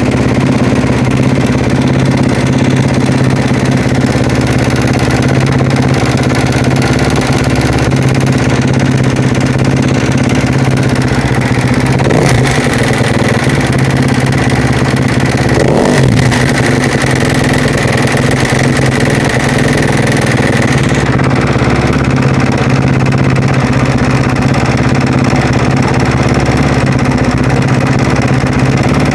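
Husaberg motorcycle engine running at a steady speed, making the strange noise under investigation, with two brief changes about twelve and sixteen seconds in.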